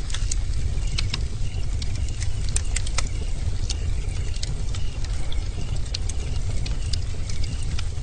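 Bonfire burning with a steady low roar and sharp crackles and pops of burning wood scattered through. A faint, short high chirp repeats about once a second in the background.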